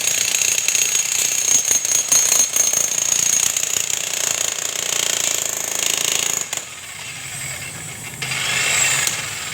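Makita electric demolition hammer chiseling into a concrete column, hammering steadily and then stopping about two-thirds of the way through; a quieter noise follows near the end.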